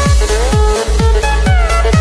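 Background electronic dance music: a steady kick drum about twice a second over a deep bass, with a synth melody that slides up and down in pitch.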